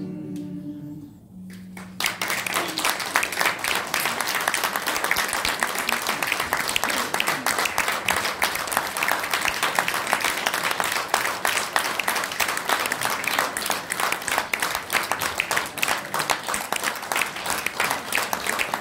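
A choir's last held chord dies away in the first second or so, and about two seconds in an audience breaks into dense, steady applause.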